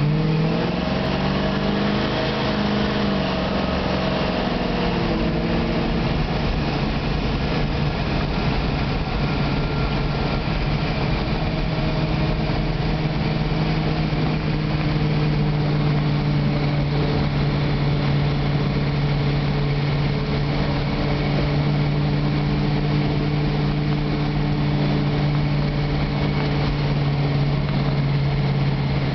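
Hot-rodded Plymouth Barracuda V8, its carburettor and air cleaner standing up through the hood, running under way on the road, heard from inside the car. The engine note sways up and down in pitch over the first few seconds, then holds a steady cruising hum.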